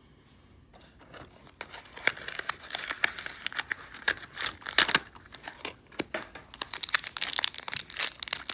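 A small cardboard blind box being pulled open, then a foil blind bag torn open and crinkled by hand. The sound starts after about a second of quiet and the crackling grows denser and louder near the end.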